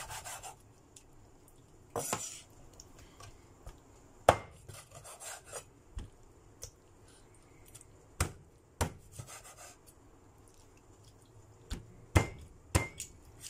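Cleaver chopping through raw chicken on a wooden chopping board: about seven heavy, sharp chops at uneven intervals of one to four seconds, with softer scraping between them.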